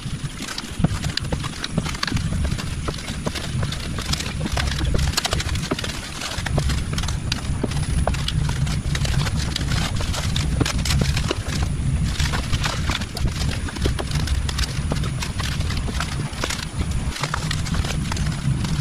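Hand digging in hard red clay: a digging tool striking and scraping the soil, with many irregular knocks, over a steady low rumble.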